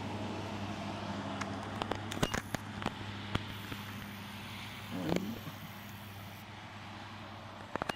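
A steady low mechanical hum over outdoor background noise, with scattered sharp clicks and knocks about two to three seconds in and again near the end.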